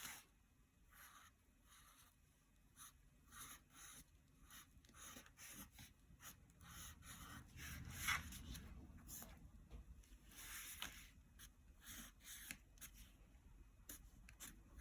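Faint scratching of a pencil drawing on paper: many short, irregular strokes.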